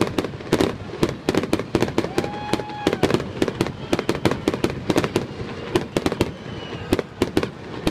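Aerial fireworks shells bursting in quick succession, several sharp bangs a second with no let-up.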